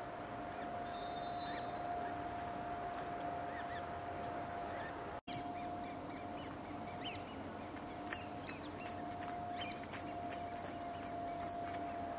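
A steady hum runs throughout, with a brief dropout about five seconds in; after it, many short high bird chirps come thickly over the hum.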